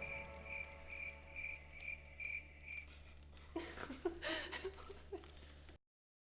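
Cricket chirps repeating evenly, about two and a half a second, over a faint held music chord: the comic 'crickets' silence gag. The chirps stop about three seconds in, a brief sliding, voice-like sound follows, and the audio cuts to silence near the end.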